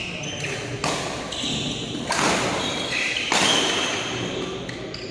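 Badminton rally: a shuttlecock struck by rackets three times, about a second and a quarter apart, each hit ringing in the hall, with short squeaks of shoes on the court mat between the hits.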